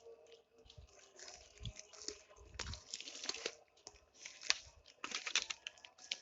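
Irregular crunching and rustling of dry leaves and twigs, with scattered sharp crackles; the sharpest comes about four and a half seconds in.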